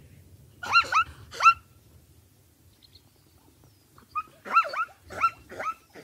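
Plains zebra barking: two short, high, yelping calls that sweep up in pitch, then a quick run of three or four more from about four seconds in, over a low rumble.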